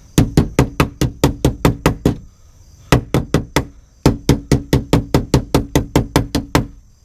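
Rapid light hammer blows on a riveted sheet-metal patch on a truck body, bending its edge over to follow the body's curve. Three quick runs of about six blows a second, with short pauses between them.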